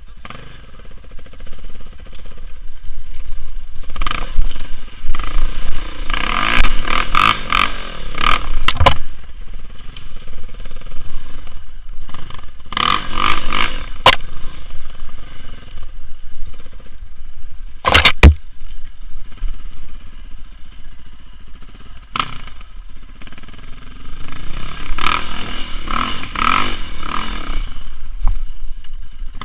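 KTM enduro dirt bike's engine running and revving in repeated surges as it is ridden off-road, heard from the rider's seat. A few sharp knocks break in, the loudest a little past the middle.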